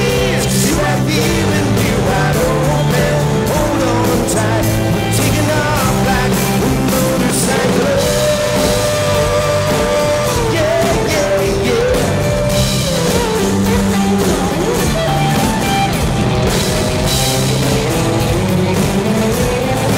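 Live country-rock band playing a song: electric guitar, strummed acoustic guitar and a drum kit.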